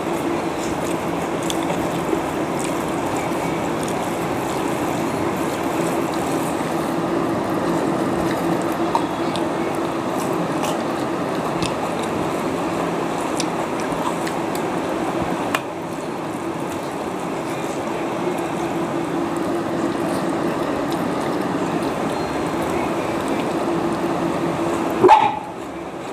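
A steady low hum under a constant noisy hiss, dropping slightly in level about two thirds of the way through. A brief pitched sound comes near the end.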